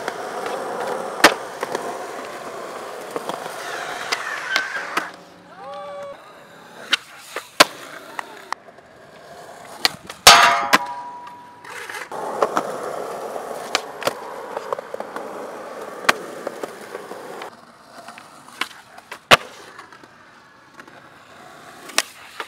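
Skateboard wheels rolling over concrete, with sharp pops and clacks of tricks and landings at intervals, the loudest about ten seconds in.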